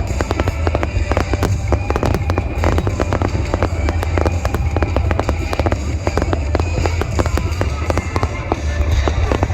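Fireworks display: many shells crackling and popping in rapid, dense succession over a steady low rumble, with the show's music playing underneath.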